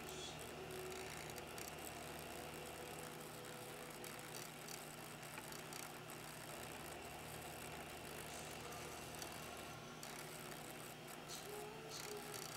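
Low, steady electric hum of a small submersible pump motor, with a deeper hum that cuts in and out every few seconds.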